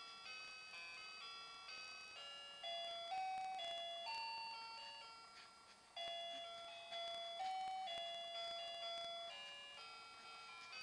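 A musical baby mobile plays a chiming lullaby tune, each note struck and fading out, the melody repeating about every six seconds.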